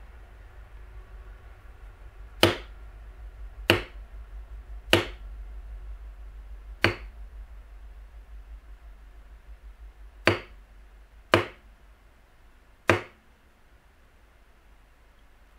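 A mallet striking a thin flat punch on tooling leather, stamping a line into the design: seven sharp knocks, four about a second apart, then a pause of about three seconds and three more.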